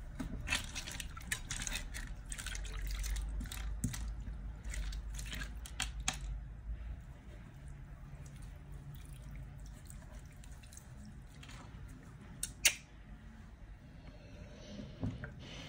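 Soaked plush toy squeezed by hand in a bowl of water: wet squelching and dripping, busiest in the first half, then quieter. A single sharp tap about two-thirds of the way through.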